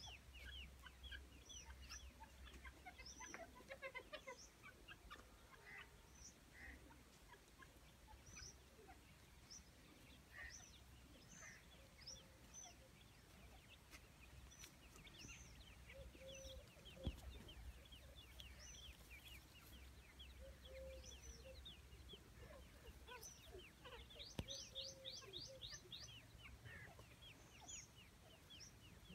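Teetar (francolins) with young calling faintly while they forage: scattered short high chirps throughout and a few soft low clucks, with a quick run of rapid chirps about 25 seconds in.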